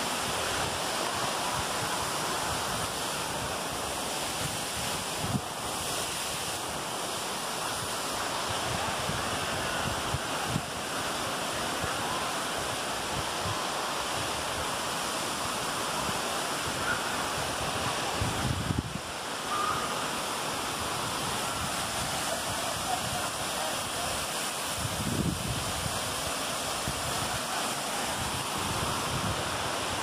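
Steady rushing of a waterfall, with gusts of wind buffeting the microphone a few times.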